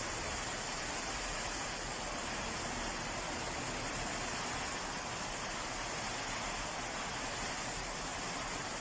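Steady rushing of fast-flowing floodwater pouring through a street.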